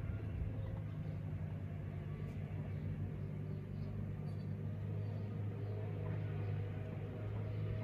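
Steady low rumbling hum at an even level.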